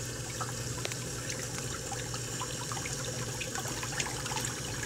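Submersible sump pump running with a steady electric hum while water churns and splashes in the flooded sump pit as the pump draws the level down. The pump is keeping up with the inflow.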